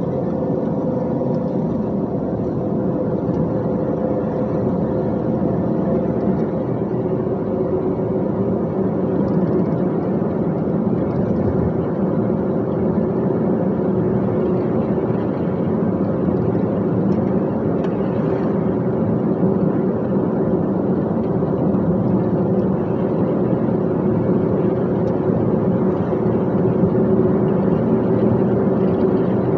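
Dump truck's engine and road noise while driving at a steady speed: a continuous drone with a few held engine tones that keep the same pitch throughout.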